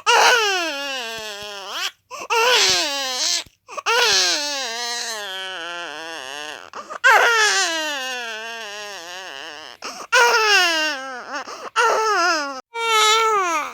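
Newborn baby crying in a string of long wails, each sliding down in pitch, with short catches of breath between them.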